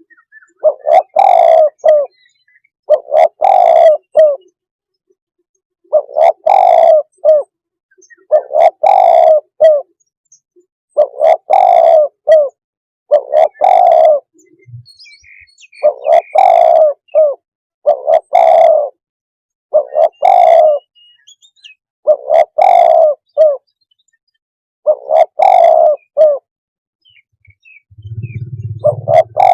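Spotted dove, a decoy bird used for luring wild doves, cooing its call phrase over and over, about a dozen times, each call a little over a second long with a short gap between. A low hum comes in near the end.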